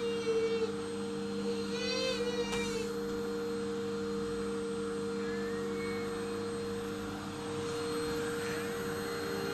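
Household electric vacuum cleaner running steadily, its motor giving a constant humming whine. A brief high-pitched cry cuts in at the start and again about two seconds in.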